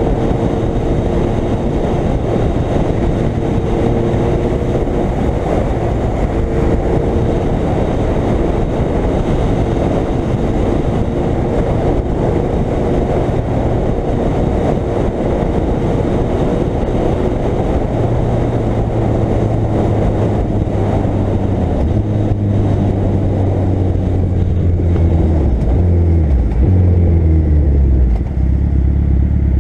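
Suzuki Hayabusa's inline-four engine running at steady cruising revs under heavy wind rush. In the last third the engine note drops in steps as the bike slows down.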